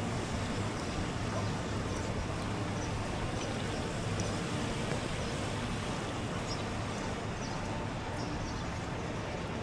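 Steady street ambience in the rain: an even hiss with a low hum under it and faint scattered ticks of drops.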